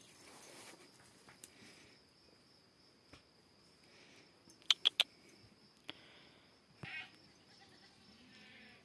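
Faint steady high chirring of field insects, broken about halfway through by three quick sharp clicks in a row, with a softer click and a brief short sound a second or two later.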